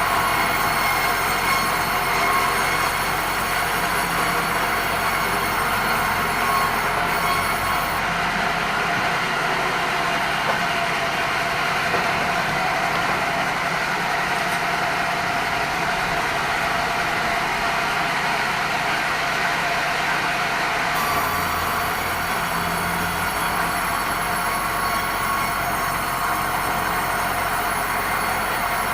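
Sawmill band saw running steadily while sawing red meranti, with a high-pitched whine over the machine noise. The whine drops out about eight seconds in and comes back some thirteen seconds later.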